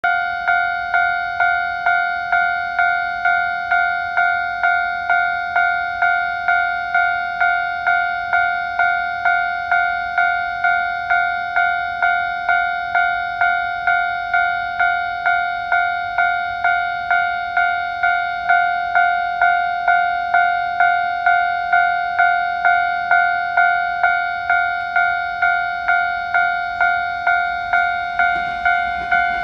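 Japanese railway level-crossing warning bell ringing: an electronic single-pitched 'kan-kan' tone struck evenly about twice a second, signalling that a train is approaching. Near the end the noise of an approaching train begins to rise under it.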